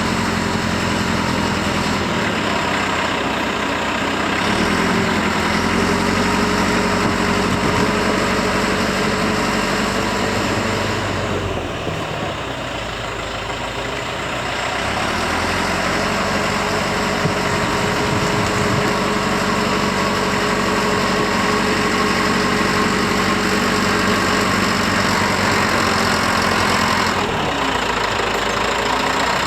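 Bulldozer's diesel engine running steadily, its pitch dipping and recovering a few times: briefly about five seconds in, for a few seconds around the middle, and again near the end.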